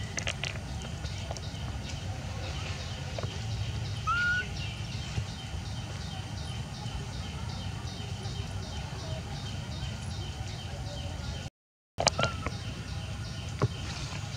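Outdoor ambience: a steady low rumble with a faint, evenly repeating high pulsing, a single short rising squeak about four seconds in, and a brief cut to silence near the end.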